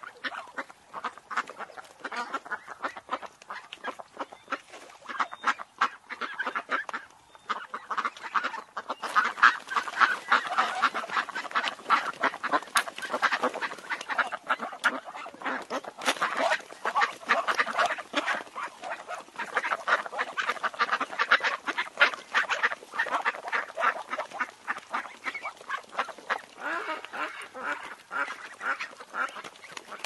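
Domestic ducks quacking in quick, overlapping series, many calls a second, louder through the middle.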